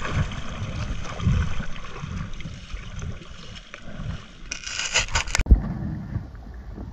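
Wind buffeting the microphone in irregular low rumbles over a steady outdoor hiss. About four and a half seconds in, a louder hissing burst lasts about a second and cuts off abruptly.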